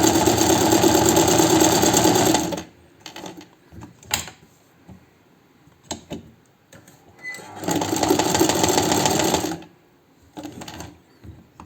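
Chaika 143A sewing machine running in two bursts, about two and a half seconds and then about two seconds, test-stitching on zigzag, a setting where it is skipping stitches. Short clicks and knocks between the bursts.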